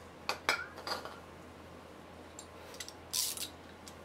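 A few light metallic clinks of a hand wrench against the shock absorber's mounting bolt and the truck's frame in the first second, then a short, harsher scraping burst about three seconds in.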